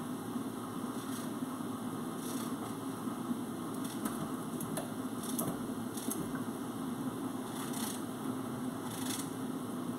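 Knife cutting a green vegetable held in the hand, a few faint scattered clicks and snaps, over a steady low hum.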